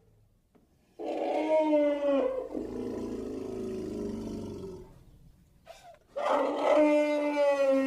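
Brontosaurus sound effect: two long, deep, tonal calls. Each starts strong and sags slightly in pitch. The first trails off into a lower rumble before fading, and the second begins about six seconds in.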